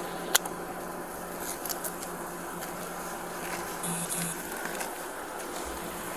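Police body-camera audio: steady roadside noise with a faint hum, scattered clicks and rustling from the wearer's movement, and two short high beeps about four seconds in.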